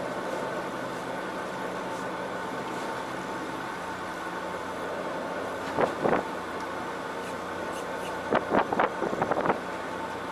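Fishing boat's engine running with a steady hum. Short loud sounds break in about six seconds in, then several more between eight and nine and a half seconds.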